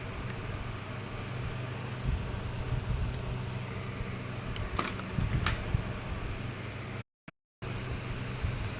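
Steady mechanical hum of room background noise, like a fan, with two light clicks about halfway through. The sound drops out completely for about half a second near the end.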